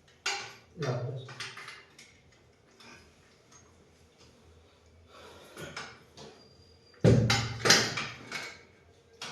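Knocks and clatter from handling and fitting a washing machine's stand, in separate bursts, the loudest a sudden knock about seven seconds in, with short stretches of low voices.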